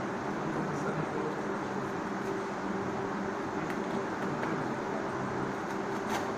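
Steady machine hum, even in level, with a few faint light clicks over it.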